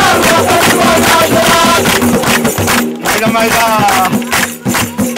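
Men singing a folk song to rhythmic hand-clapping and tambourine, the accompaniment to an Afghan rifle dance.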